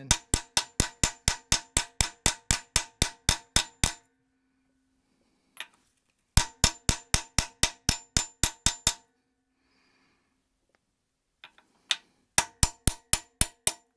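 Hammer striking a steel socket held against a freeze plug, driving the plug into a cast-iron engine block. The blows come in three quick runs of about four a second, with pauses between, and each strike rings metallically.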